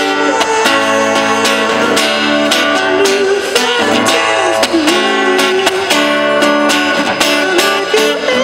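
Steel-string acoustic guitar strummed in a steady rhythm, with a man singing long held notes over it.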